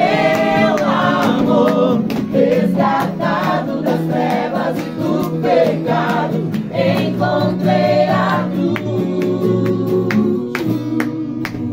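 A group of voices singing a Christian worship song together in Portuguese, over steady held low notes.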